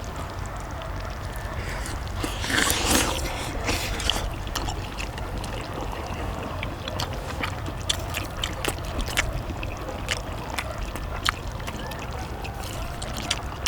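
Cheese dak-galbi sizzling and bubbling on a cast-iron cauldron lid, over a steady low rumble, with a louder surge of sizzle about two and a half seconds in. From about seven seconds on, frequent sharp clicks of utensils against the pan.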